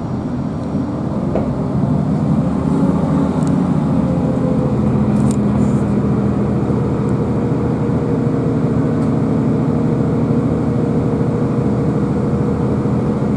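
Class 165 diesel multiple unit heard from inside the carriage, its underfloor diesel engine powering up as the train pulls away from a station. A steady engine drone, with a tone that rises in pitch about a second in as it gets louder, and a few faint clicks.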